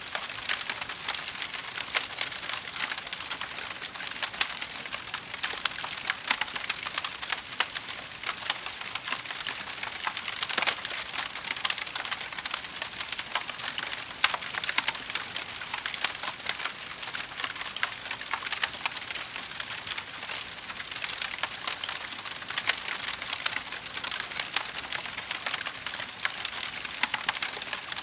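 Fire crackling: a dense, irregular run of small pops and snaps over a steady hiss, with no let-up.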